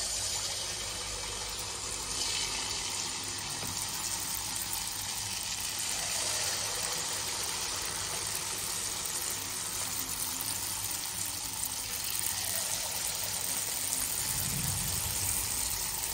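Wheat-flour and jaggery batter deep-frying in hot oil, sizzling steadily. The sizzle starts suddenly as the batter drops into the oil.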